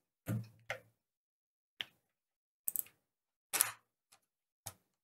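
Short clicks and knocks of a wheelchair switch-mounting clamp and its tube joints being handled and repositioned, irregularly spaced, the loudest about three and a half seconds in.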